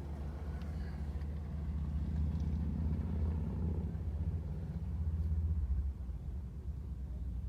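A low, steady rumble that swells slightly in the middle and eases near the end.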